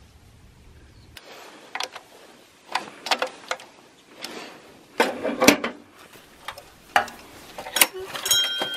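A run of irregular knocks and clatters, parts or tools being handled and set down, with a short steady tone near the end.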